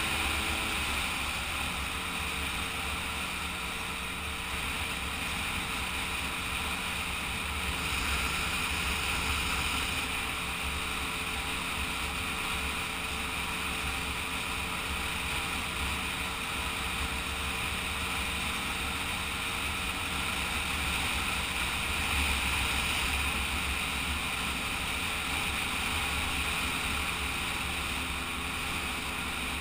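Kreidler two-stroke moped engine running at a steady cruising speed, its pitch dropping about a second in, with wind buffeting the microphone.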